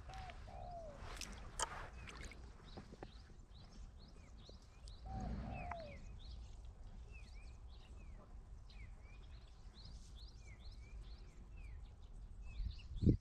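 Birds calling outdoors: a run of quick, repeated high chirps that each fall in pitch, and twice a lower falling two-note call. Over a low steady rumble, with a single sharp thump near the end.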